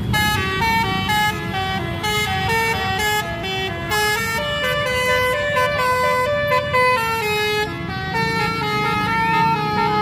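Multi-tone 'telolet' air horn on a tour bus playing a fast melody of short stepped notes, over a low rumble.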